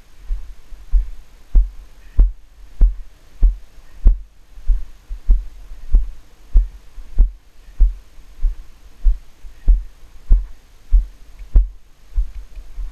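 A horse's strides on a sand arena, heard through a helmet-mounted camera that jolts with each stride: deep, even thuds about every 0.6 seconds, some with a light click on top.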